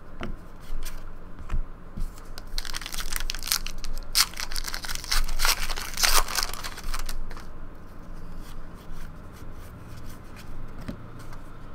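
A trading-card pack wrapper being torn open and crinkled, a run of crackling from about two and a half to seven seconds in. After that come softer rustles and taps of cards being handled.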